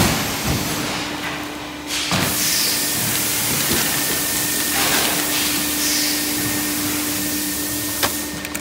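Hydraulic punching press at work on a sheet of formed plastic cup lids. A steady hum runs underneath, with a knock at the start and another about two seconds in. After the second knock a loud, even hiss carries on until a sharp click near the end.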